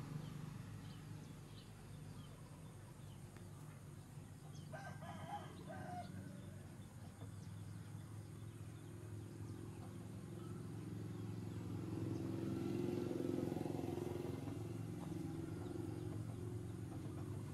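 A rooster crows once, about five seconds in, over a steady low rumble that grows louder a little past the middle.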